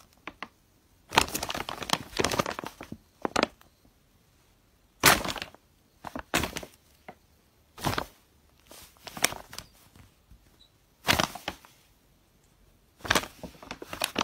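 Brown paper bag crinkling and rustling as a cat shifts about inside it, in short bursts every second or two with quiet gaps between.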